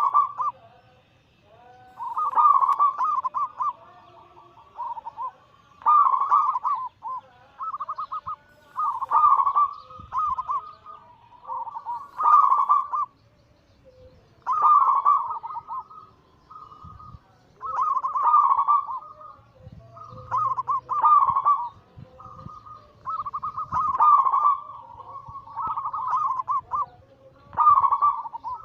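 Perkutut (zebra doves) cooing: phrases of rapid, rolling coo notes repeated every two to three seconds.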